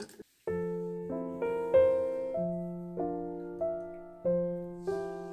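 Background piano music: a slow, gentle melody of notes that ring and fade, over a low bass note struck about every two seconds.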